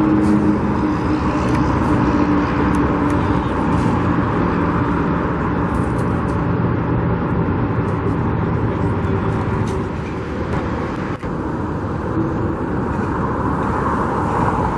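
Steady road traffic: cars passing on a busy road, a continuous hiss of tyres with engine hum, easing briefly about ten seconds in.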